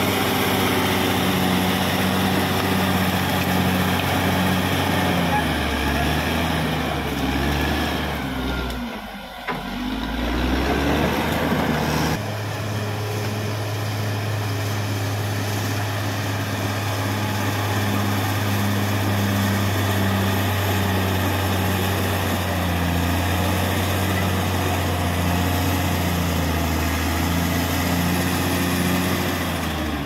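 Caterpillar D6R XL bulldozer's diesel engine running steadily while working. Around nine seconds in the level drops briefly and the engine pitch dips and climbs back, and at about twelve seconds the sound changes abruptly.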